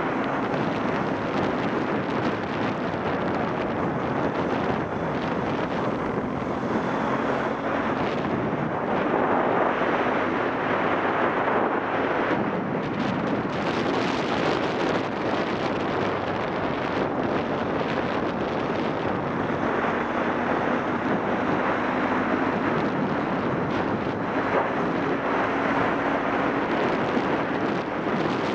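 Wind rushing over the microphone at riding speed on a Yamaha XTZ 750 Super Ténéré, with the motorcycle's parallel-twin engine running steadily underneath.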